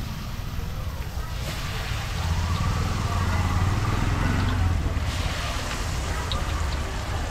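Busy market street ambience: an engine running close by, swelling for a few seconds and then easing off, over a background of distant voices.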